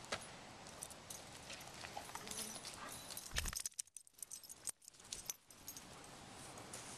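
Footsteps crunching and crackling over dry fallen leaves and twigs, with a low thump of the camera being handled about three and a half seconds in.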